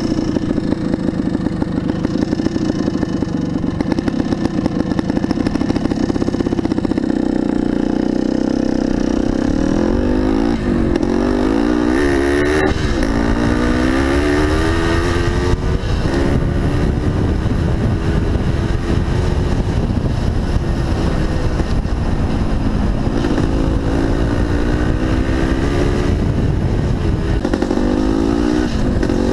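1975 Yamaha DT400B's single-cylinder two-stroke engine running under way off road. Its pitch climbs in rising sweeps through the gears and drops back at each shift or roll-off, several times over.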